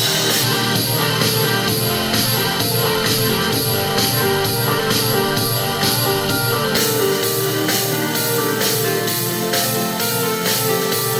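A portable Bluetooth speaker plays a rock-style song with guitar and drums. About seven seconds in, the sound changes abruptly and the deepest bass drops away, as playback moves to the other speaker under test.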